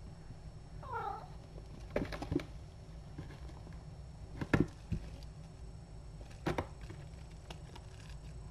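A cat gives a quick run of short falling chirps about a second in. Then come several sharp knocks and thumps as the cats wrestle and roll on the carpet against the scratcher arch; the loudest falls a little past the middle.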